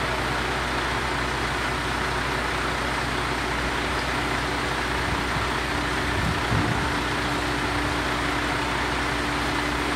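Semi tractor's diesel engine running steadily, driving the hydraulic hoist as the end-dump trailer's box is tipped up. It makes a steady low hum, and a higher steady tone joins about five and a half seconds in.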